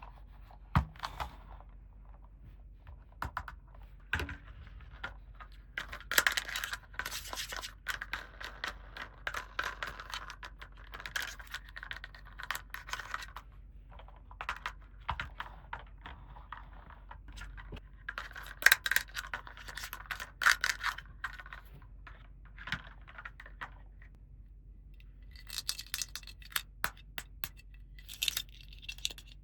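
Small plastic toy pieces being handled, with irregular clicks and taps as they are set down and fitted together, and a few spells of rustling packaging. A run of brighter, sharper clicks comes near the end.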